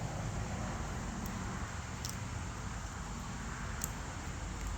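Steady low background hum and noise, with a few faint, short clicks about a second, two seconds and four seconds in.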